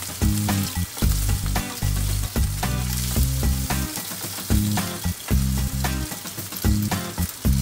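Tuna pieces searing in hot oil in a pan, a steady sizzle. Metal tongs scrape and click against the pan as the pieces are turned.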